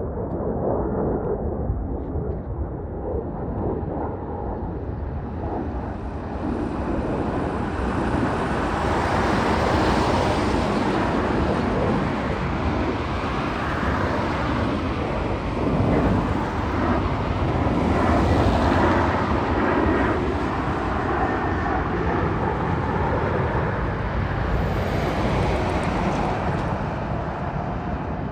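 Fighter jet engines rumbling loudly, the roar swelling through the middle and easing off near the end.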